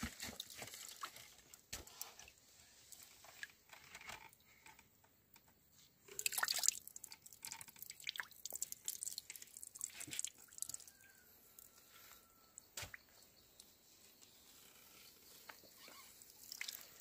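Liquid dripping irregularly into a small pool in a stone pit beneath a traditional wooden-beam press. There are scattered small drip clicks and a louder patch of splashing noise about six seconds in.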